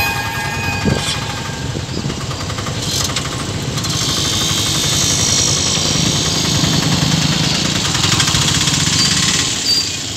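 Motorcycle engines running as traffic pulls away across the tracks. A fast, rattling engine beat grows louder from about four seconds in.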